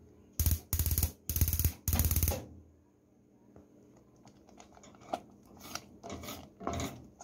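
Wooden spoon scraping around a pot of thick condensed-milk brigadeiro mixture in four quick, rattling strokes about half a second in, then softer scattered taps of the spoon against the pan.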